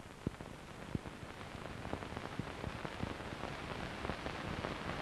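Steady hiss with many scattered faint crackles and ticks, growing slightly louder after the first second.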